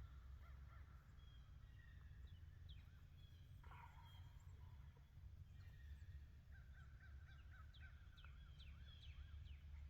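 Faint birds calling: many short chirps and quick pitch glides, over a steady low rumble.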